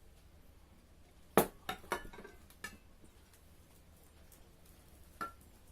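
Tableware clinking: a sharp clink of dishes about one and a half seconds in, a few lighter clinks over the next second, and one more near the end.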